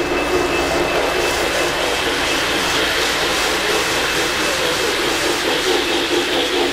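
O-gauge three-rail model trains running at speed on Fastrack track: a steady whir of electric motors and wheels on the rails, with a faint thin high tone over it.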